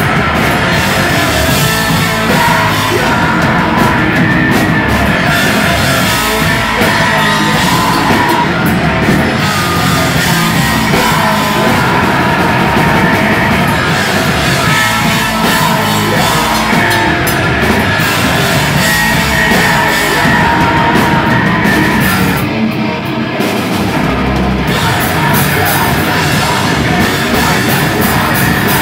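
A rock band playing live and loud: electric guitar and drum kit with cymbals, dipping briefly about three-quarters of the way through.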